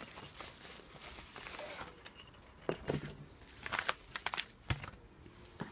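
Padded paper mailing envelope rustling and crinkling as it is opened by hand, followed by a few light clicks and knocks of handling as its contents are taken out.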